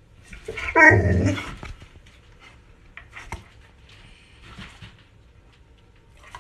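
Pit bull giving one loud vocal call, between a bark and a whine, starting about half a second in and lasting about a second, followed by a few faint clicks and rustles.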